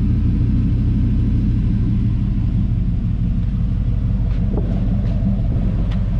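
A 1994 GMC OBS Regency pickup's engine running at a steady idle just after being started, heard from behind the truck near its dual exhaust tips.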